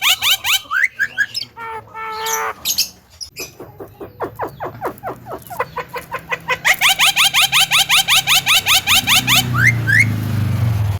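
Javan myna calling: rapid trains of short rising notes, about eight a second, at the start and again in the second half, with varied chirps and squawks in between.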